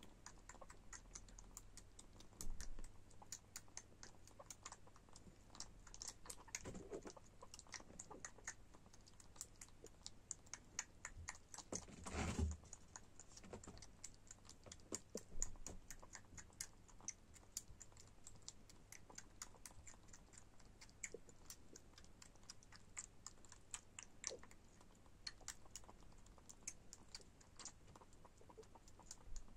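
Six-week-old Bengal kitten suckling from a bottle nipple, making a faint, irregular run of small wet clicks and smacks. One louder knock comes about twelve seconds in.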